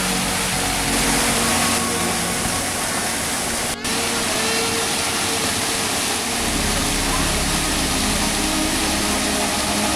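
Steady rush of a pond's fountain and small waterfall splashing, with faint voices in the background. The sound drops out for a moment about four seconds in.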